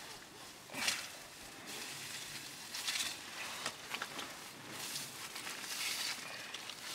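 Dry straw litter and dried animal dung rustling and scraping as they are gathered up by hand, in short irregular bursts, the loudest about a second in.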